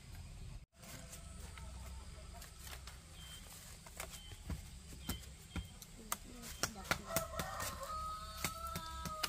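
Thin bamboo strips clicking and clattering as they are woven by hand into a mat, the clicks coming thicker in the second half. A rooster crows once near the end, one long call that falls slightly in pitch.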